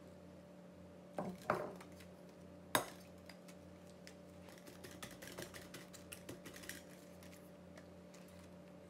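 A few dull knocks and one sharp click, then a run of faint light taps, over a steady low hum.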